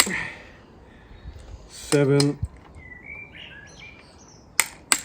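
Torque wrench clicking as a Mazda 13B rotary engine's tension bolts reach 40 N·m: a sharp click at the start, then two more close together near the end.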